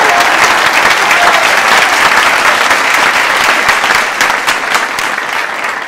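Audience applauding, a dense patter of many hands clapping that dies down over the last couple of seconds.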